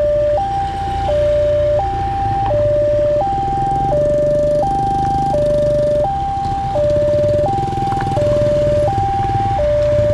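Railroad level-crossing warning siren sounding a two-tone alarm, switching between a higher and a lower tone and holding each for under a second, over a steady low rumble.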